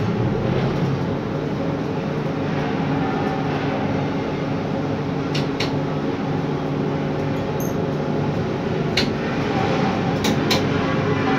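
Overhead hot metal crane running, heard from inside the operator's cabin: a steady hum of the electric drive motors over a rumble like rail wheels, with a few sharp clicks about halfway through and again near the end.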